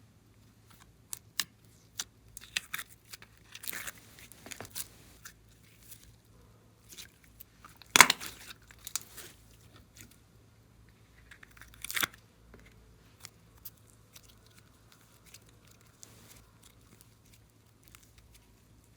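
Glossy slime being worked by hand, giving irregular sticky pops, crackles and tearing sounds. The loudest pop comes about eight seconds in and another about twelve seconds in.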